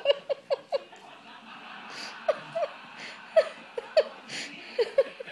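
A person laughing in short repeated 'ha' bursts: a quick run at the start, then scattered laughs, picking up again near the end.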